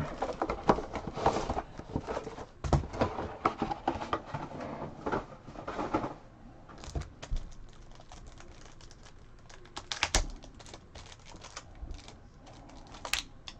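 Crinkling and crackling of a trading-card box set and its plastic wrap being handled and opened, followed by quieter scattered clicks and taps as the stack of cards is handled, with a couple of sharper taps near the end.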